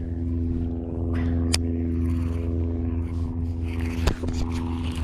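Steady motor hum, a low drone that holds one pitch, with a sharp click about a second and a half in and another near the end.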